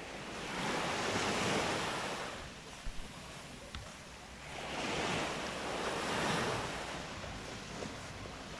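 Surf on a sand beach: two waves break and wash up the shore, each swelling and fading over about two seconds, with wind on the microphone. A couple of short knocks about three seconds in.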